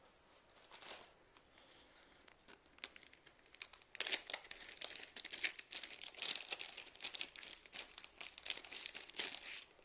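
Plastic packaging crinkling and rustling as it is handled: a few faint rustles, then from about four seconds in a busy, rapid crackling of plastic that stops just before the end.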